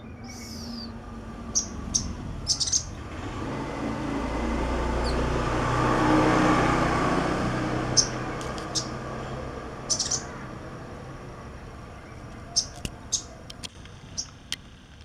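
Sogok ontong sunbird giving short, sharp, high chirps in scattered clusters, a few quick notes at a time. Behind them a vehicle passes, its noise swelling to a peak in the middle and fading away.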